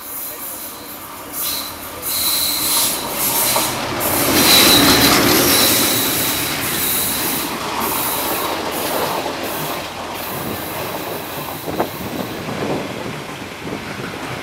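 A DF11 diesel-electric locomotive hauling 25Z passenger coaches passes through at speed, loudest as the locomotive goes by about four to five seconds in, with a high steady wheel squeal on the curved track. The coaches then run past with the rumble of their wheels and sharp clicks over rail joints near the end.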